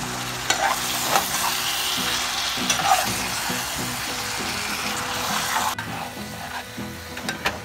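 Eggplant and potato pieces sizzling in oil and tomato masala in a metal pot while being stir-fried, with a metal spoon scraping and clicking against the pot. The sizzle drops quieter about six seconds in.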